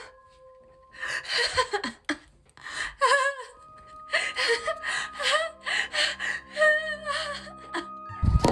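A young woman's breathy, high-pitched voice making gasps, giggles and whimpering sounds in short broken bursts, over a steady hum. Near the end a sudden loud burst of noise cuts in.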